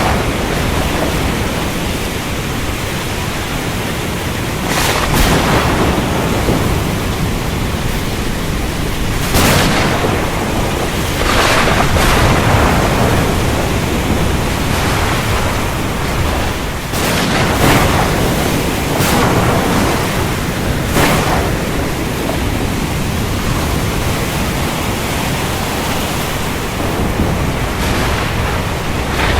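Heavy rain falling steadily, with several sharp cracks of thunder breaking through it.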